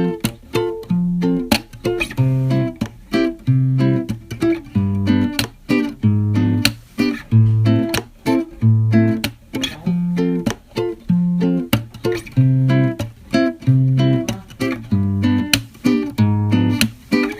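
Background music: acoustic guitar playing a steady, rhythmic plucked pattern over a repeating bass note.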